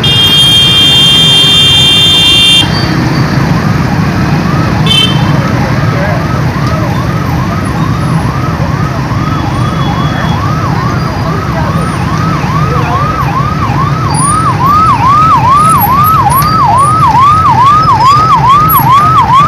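Emergency vehicle siren yelping in quick falling sweeps, about two a second, growing louder toward the end, over steady traffic noise. A steady high tone sounds for the first two and a half seconds.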